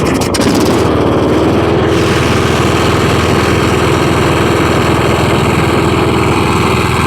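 Kohler Courage small engine on a riding lawn mower running steadily just after catching, the previous no-start condition now cured.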